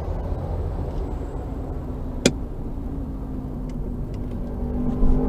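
Car engine running steadily with a low rumble, with one sharp click a little over two seconds in.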